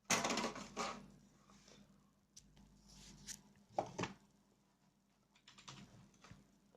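Scattered clicks and taps: a loud clatter at the start, a few sharp single clicks around the middle, and lighter tapping near the end.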